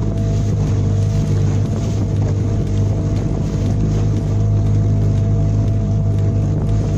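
Small boat's outboard motor running at a steady speed, a constant low drone, with a steady hiss of wind and water.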